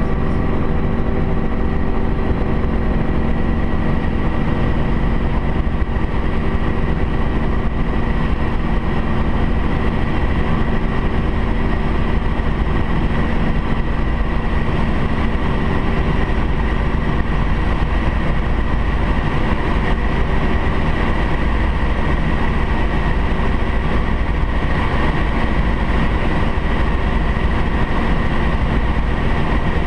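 Single-engine light plane's engine and propeller running steadily at power in low flight, with a constant drone and steady tones.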